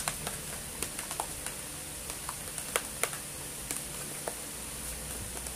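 Homemade slime being kneaded and squeezed by hand in a plastic tub: irregular small sticky clicks and pops, roughly two a second.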